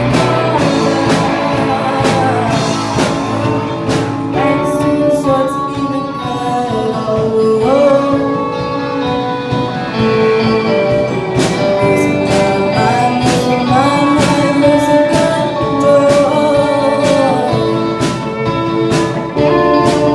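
A rock song with a singer's held, gliding melody over guitar and a steady drum beat.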